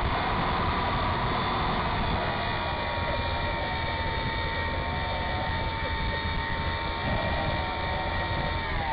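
Radio-controlled model airplane's motor heard from the onboard camera, running at a steady high pitch over wind rush on the airframe. Just before the end the pitch falls as the throttle is pulled back on the approach to land.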